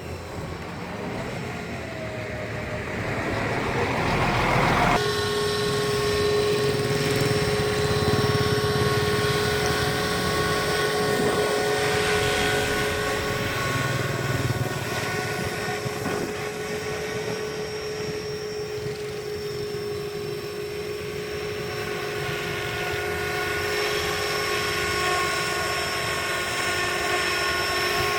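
Electric motor and rotor whine of a Tarot 450 Pro RC helicopter with a scale MD500 body. The pitch rises over the first few seconds, the sound changes abruptly about five seconds in, then it holds a steady tone.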